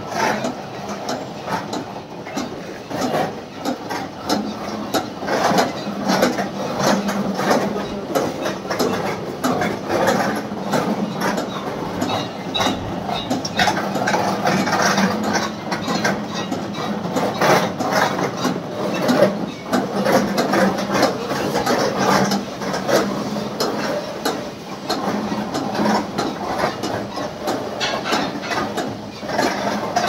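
Silage baler machine running: a steady hum under continuous irregular rattling and clattering from its moving mechanism as chopped fodder is fed through.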